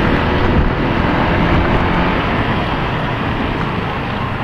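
Honda Click 160 scooter's single-cylinder engine running while riding, under steady wind rush on the bike-mounted microphone.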